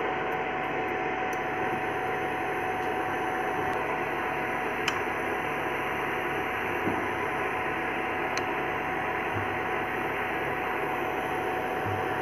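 Steady hum and noise of an induction cooktop's cooling fan, with a thin steady whine, while it heats a tawa. Two light clicks come about five and eight seconds in.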